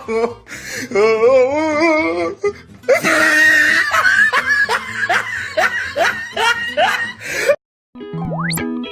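A run of meme sound-effect clips: a wavering voice and a spoken "No," then a burst of laughter in quick repeated falling bursts that cuts off suddenly. After a short silence, plucked-string music begins, with a rising whistle-like glide near the end.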